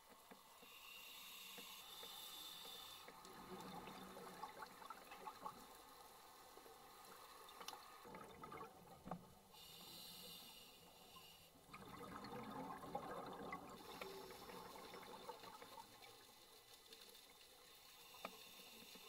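Faint scuba breathing heard underwater: two hissing inhalations through a regulator, near the start and about ten seconds in, each followed by a few seconds of crackling bubbles as the breath is exhaled.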